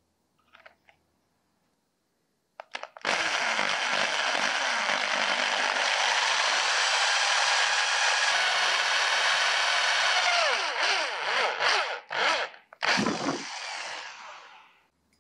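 Electric hand drill with a 6 mm bit boring through a Rhodesian teak handle scale, through the hole in the steel knife tang. It starts about three seconds in and runs steadily for about seven seconds. Then it is run in a few short bursts and winds down near the end.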